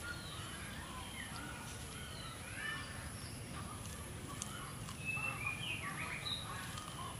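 Outdoor ambience with a chorus of many short, high chirping calls overlapping one another, busiest and loudest about five to six and a half seconds in.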